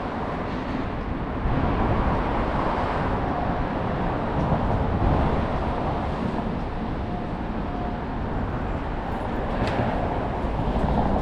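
City street traffic: a steady noise of passing vehicles, with a brief sharp sound near the end.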